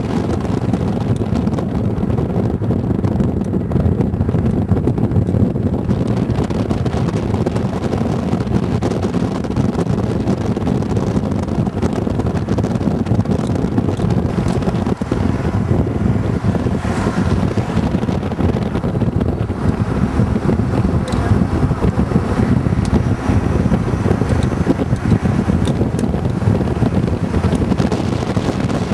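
Steady low rumble of a moving car, its road and engine noise mixed with wind buffeting the microphone.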